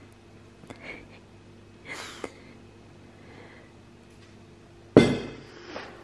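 Sparkling wine bottle being opened: foil crinkling and cage handling, then the cork popping out with one sudden loud pop about five seconds in, fading into a short hiss.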